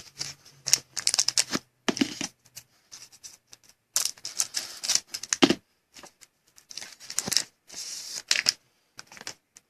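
Trading cards being handled and slid against one another: a run of irregular light clicks and brief rustles.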